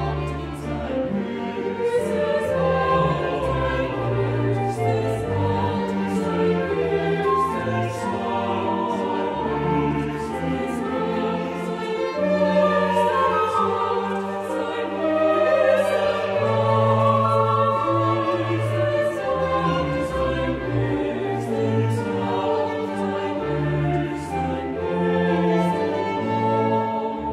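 A three-part choir singing a slow chorale setting with strings and basso continuo, in sustained phrases over a moving bass line.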